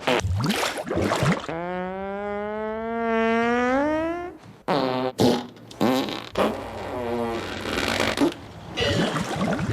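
A run of fart sounds: a few short blasts, then one long pitched fart of about three seconds that rises slightly in pitch. Several more short blasts follow, then longer rattly, noisy ones near the end.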